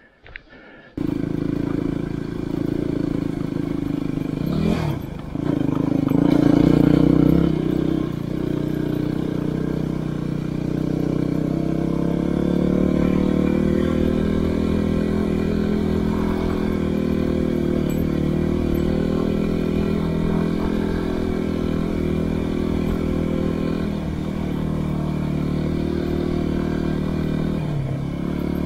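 Yamaha WR250R dual-sport motorcycle's single-cylinder four-stroke engine running, cutting in suddenly about a second in. Its revs dip and climb around five seconds in and it runs louder for a moment. It then holds steady revs, with brief dips near the end.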